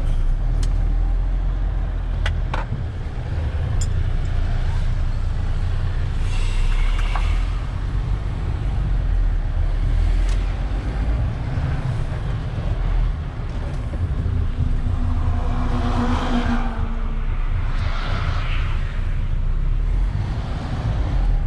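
Heard from inside the cab, a semi-truck's diesel engine runs with a steady low rumble as the truck pulls away and drives along the road. There are a few sharp clicks, and the sound swells for a few seconds about three-quarters of the way through.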